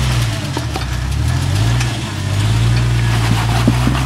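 Jeep engine working at low revs while rock crawling, its pitch rising and falling as the throttle is fed in and eased off, with a few sharp knocks over it.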